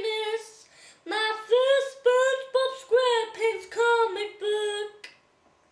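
A high female voice singing a short unaccompanied sing-song phrase of about eight held notes, stopping about five seconds in.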